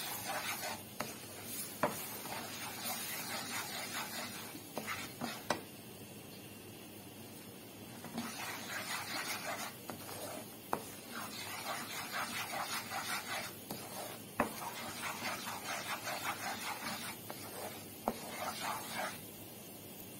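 A flour, oil and butter roux sizzling in a nonstick frying pan as it is toasted, with a wooden spoon stirring and scraping through it in rhythmic strokes. A few sharp knocks of the spoon on the pan are mixed in, and there is a short lull in the stirring about six seconds in.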